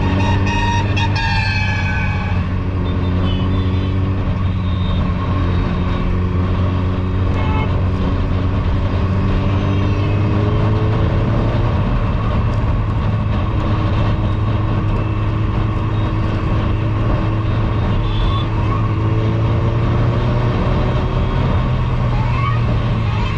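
Suzuki Hayabusa's inline-four running through a Two Brothers Racing exhaust while riding, its pitch climbing slowly, dropping about halfway through and climbing again. A vehicle horn sounds briefly at the start.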